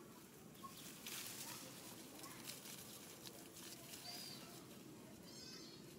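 Faint outdoor quiet with a brief rustle about a second in, a short high chirp about four seconds in, and a short high-pitched animal squeak near the end.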